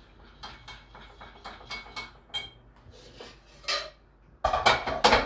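A spoon clinking against a bowl in a run of light, ringing taps while an egg yolk, yogurt and oil glaze is mixed, then a louder clatter of dishes near the end.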